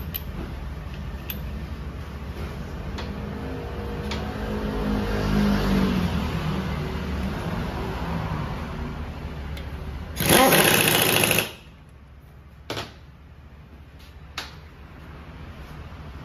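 Pneumatic impact wrench rattling for about a second and a half on a scooter's rear axle nut, over a steady low hum, followed by two light knocks.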